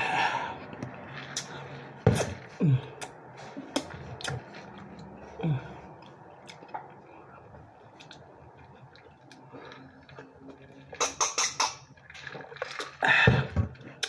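A person eating a hot pastrami sandwich close to the microphone: chewing with wet mouth smacks and irregular clicks, including a quick run of sharp clicks about eleven seconds in.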